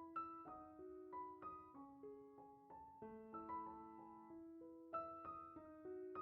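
Quiet background piano music: a gentle melody of single struck notes, about three a second, ringing over held lower notes.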